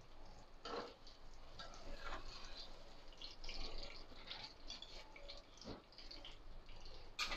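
Metal spatula scraping and knocking against a frying pan while lifting out a fried chapli kabab, with faint crackling of hot oil. The sharp knocks come irregularly, a few times.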